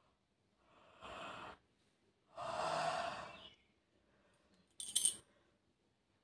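A person yawning: a breathy intake of air about a second in, then a longer, louder, partly voiced yawn out. A short sharp click follows near the end.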